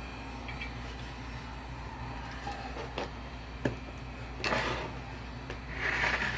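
Heat gun blowing steadily, with a few light clicks and two short scraping sounds about four and six seconds in as a subwoofer spider is pried up from the basket.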